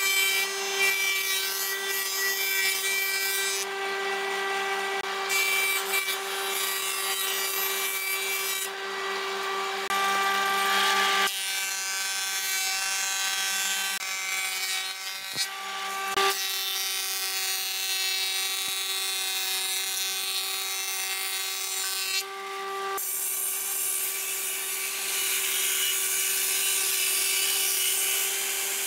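Stationary woodworking machines cutting timber: a jointer, then a thickness planer, then a table saw, each a steady motor and cutter whine over the rasping of wood being cut. The sound changes abruptly twice, about a third and two thirds of the way through.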